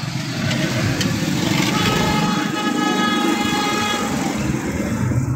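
Busy street traffic, with motorcycle and car engines running close by. A vehicle horn sounds one steady blast of about three seconds, starting about a second and a half in.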